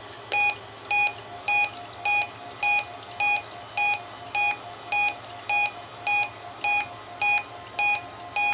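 Reecom R-1630 weather radio's built-in alert beeping for a NOAA Required Weekly Test: short, even electronic beeps, a little under two a second, with a faint steady tone underneath.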